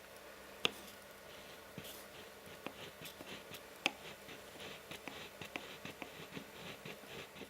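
Faint, irregular light clicks and rustling over a low hiss, like small handling noises in a small room. Two sharper clicks stand out, one near the start and one about four seconds in.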